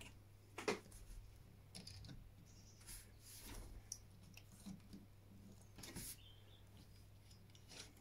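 Faint, scattered clicks and light handling of hard plastic toy parts as spiked wheels and a spinning blade weapon are fitted onto a Transformers action figure.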